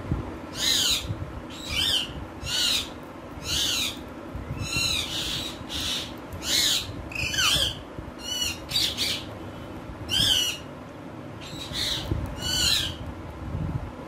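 Alexandrine parakeets calling: a run of about a dozen short, loud calls, roughly one a second.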